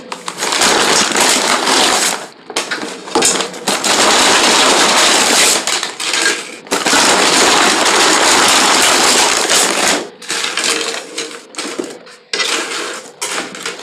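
Bag of tortilla chips crinkling and rustling while handled close to the microphone, in long continuous stretches with brief pauses. It turns into shorter, broken crackles in the last few seconds.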